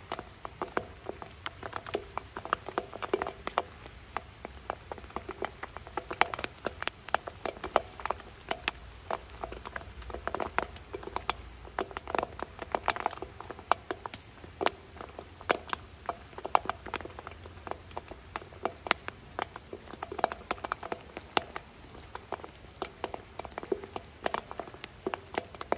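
Popcorn kernels crackling as they heat in a dry cast-iron kazan: sharp, irregular clicks and small pops, several a second.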